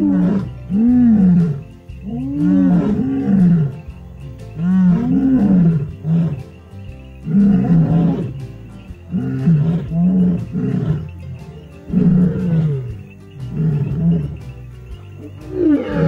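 A seal calling again and again: calls that rise and then fall in pitch, most in pairs, about every two seconds.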